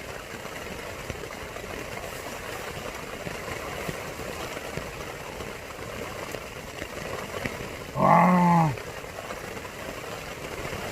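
Steady rain falling on a tent, an even hiss throughout. About eight seconds in, a man's short loud exclamation, "wah!", sounds over it.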